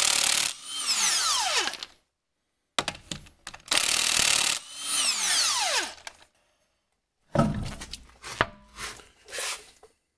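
Cordless impact wrench loosening lug nuts on a car's front wheel: two bursts of hammering, each ending in a falling whine as the motor spins down. A few knocks and clatter follow near the end.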